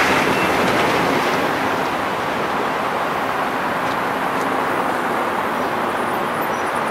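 Road traffic driving over a railroad crossing: a steady wash of tyre and engine noise that eases a little over the first two seconds.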